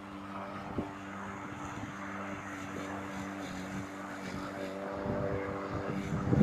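Corded 1800-watt electric lawn mower running as it is pushed across grass: a steady motor-and-blade hum that shifts slightly in pitch about halfway through.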